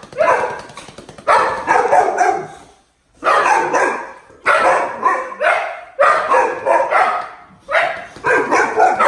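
Dog barking in repeated bursts, each a quick run of barks, about every second and a half.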